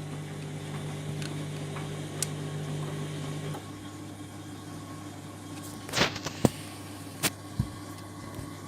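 Candy washing machine motor and drum running with a steady hum as the spin begins; one tone of the hum drops out about a third of the way through, and a few sharp knocks from the drum follow near the end.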